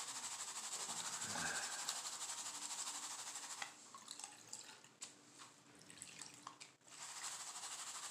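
Muddy water sloshing and swirling in a plastic gold pan dipped in a tub as paydirt is panned. A steady wash of water turns patchy with small splashes and clicks for a few seconds in the middle, then the steady washing resumes near the end.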